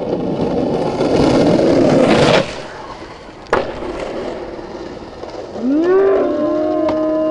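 Skateboard wheels rolling loud on concrete, stopping abruptly about two and a half seconds in, then a single sharp clack of the board a second later. Near the end a person lets out a long yell that rises and then holds one pitch.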